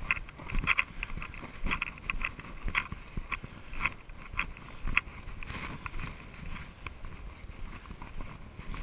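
Mountain bike riding over a leaf-covered dirt trail. Irregular rattling clicks come from the bike jolting over bumps, over a low rumble of tyres on the ground. The rattling is busiest in the first half and eases after about five seconds.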